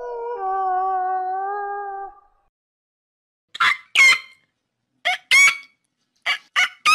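A wolf howling, one long held note that drops at the start and ends about two seconds in. After a short pause, a goose honks in short calls, mostly in pairs, about seven calls in all.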